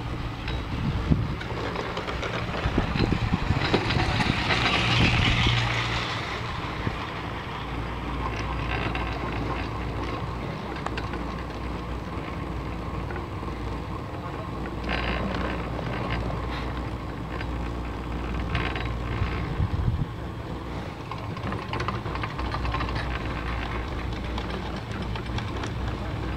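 Ride on a 1974 Marchisio two-seat chairlift: a steady, rail-like rumble of the haul rope and chair. It is louder and clattering for the first six seconds, as the chair's grip runs through the roller train on a tower, and scattered clicks and knocks follow later.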